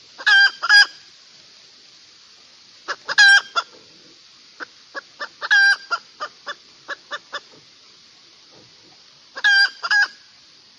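Hen cackling: short clucks broken by loud, drawn-out 'ka-taak' calls, a pair near the start, one about 3 seconds in, and another pair near the end.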